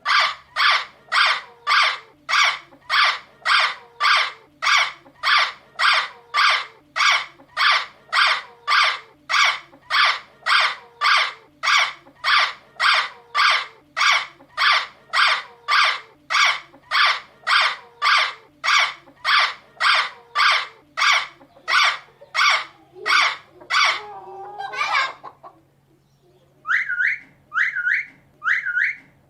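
A parrot repeating a harsh squawk about twice a second, then a longer wavering call and four short whistled notes near the end.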